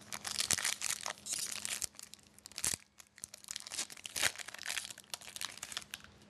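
Plastic wrapper of a 2011-12 Pinnacle hockey card pack crinkling and tearing as it is opened, in a run of irregular crackles.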